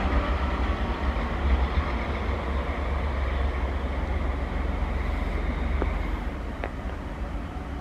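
FS D445 diesel locomotive running as it moves slowly along the tracks, a steady low diesel rumble. Two faint clicks come near the end.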